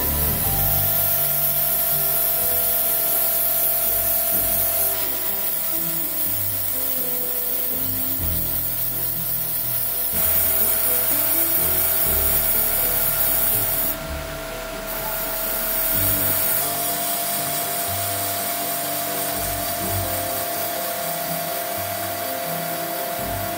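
A power tool working cymbal metal: a steady rasping, grinding hiss that shifts in level every few seconds, over background music.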